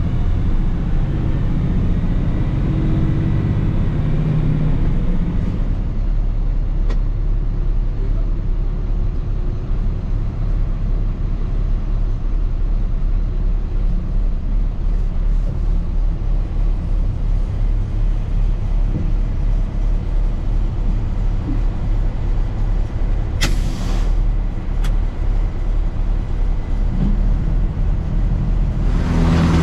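Heavy farm machinery engine running steadily with a continuous low rumble, and two short sharp sounds near the end.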